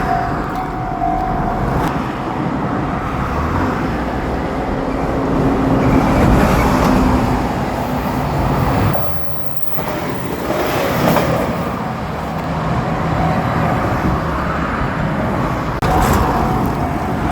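JR Shikoku 2700 series diesel limited-express railcar train passing over a level crossing, a loud continuous rumble of engines and wheels on the rails. The crossing bell's steady ringing tone is heard at the very start and comes back near the end.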